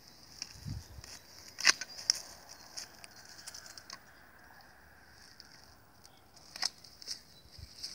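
Long-handled bypass loppers cutting through the woody lower branches of a highbush blueberry bush: a sharp snap of a cut a little under two seconds in, another near the end, with smaller clicks between.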